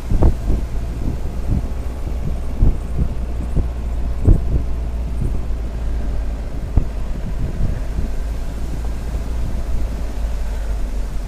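Jeep Cherokee XJ driving along a rough dirt track, heard from an outside-mounted camera. A steady low rumble of the vehicle is mixed with wind on the microphone, and short low thumps come as the vehicle jolts over bumps, most of them in the first half.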